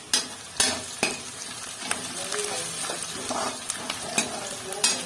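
Sliced onions sizzling as they fry in oil in a kadai, turning light brown, while a spatula stirs and scrapes through them. The spatula knocks sharply against the pan about half a dozen times.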